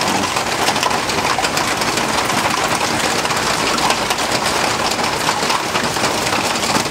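Steady heavy rain from Hurricane Irene, drops pattering on surfaces, with no strong wind yet.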